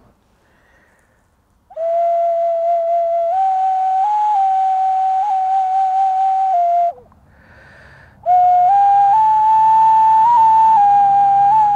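Kōauau pongāihu, a small Māori gourd nose flute, sounding clear, breathy held notes that step upward in pitch. It plays in two phrases with a short breath pause about seven seconds in, the first starting about two seconds in.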